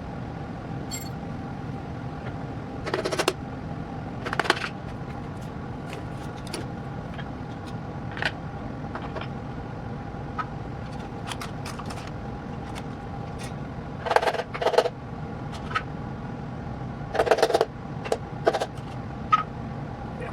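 Metal tools and engine parts clinking and clanking in short bursts, with scattered single clicks, over a steady hum with a few held tones.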